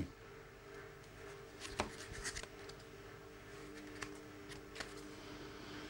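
Pages of a paper instruction booklet being leafed through: a few short, crisp paper rustles and flicks, faint, over a low steady hum.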